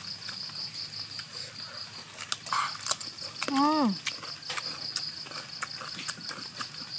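An insect trilling steadily in a high, pulsing tone, with scattered clicks of people biting and chewing. About three and a half seconds in, a person makes a short 'mmm' that dips and rises in pitch.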